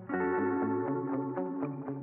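Background music: one chord struck at the start and held, with a plucked, effected tone.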